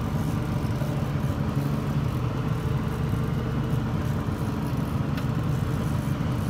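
Boat's outboard motor running steadily at low trolling speed, a constant low hum.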